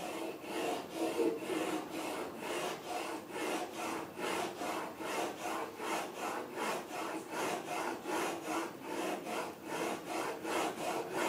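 A2-steel plane blade in a single-wheel honing guide rasping back and forth on a wet diamond sharpening stone, in a steady rhythm of about three strokes a second, grinding the bevel.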